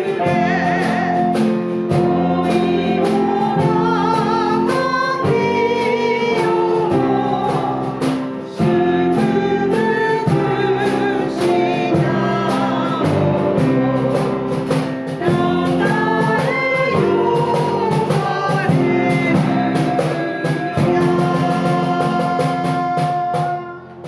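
Church congregation singing a hymn with instrumental accompaniment, in held chords; the last chord is held near the end and then stops.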